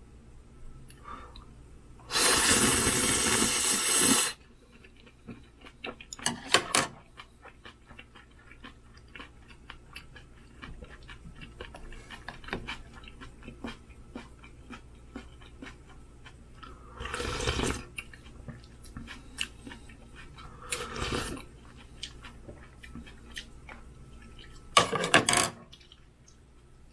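Ramen noodles slurped loudly for about two seconds, then three shorter slurps of noodles and broth, with quiet chewing between them. Sharp clicks of chopsticks and a wooden spoon sound against a thin aluminium ramen pot.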